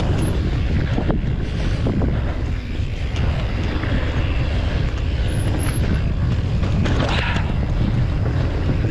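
Wind buffeting the microphone of a mountain biker's camera while riding, with the bike's tyres rolling over rock and a few short knocks and rattles from the bike.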